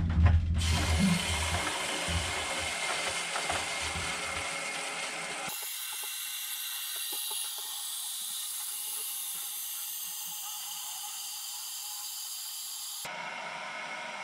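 A toilet cistern's fill valve hissing as water runs in to refill the empty tank. The hiss turns thinner and higher about five seconds in and changes again near the end as the tank fills.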